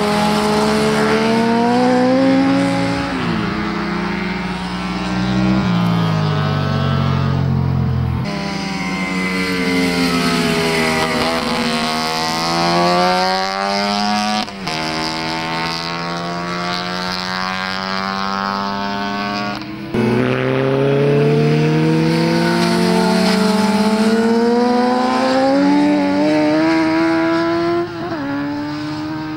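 Sport motorcycles at speed on a race circuit. The engines rev up hard and drop sharply at each gear change, and the pitch bends as they pass close by.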